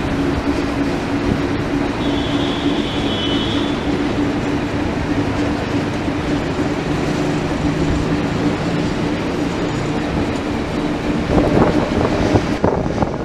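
Beovoz electric commuter train running, heard from on board: a steady rolling rumble with a low motor hum. A brief high-pitched squeal comes about two seconds in, and louder clattering near the end.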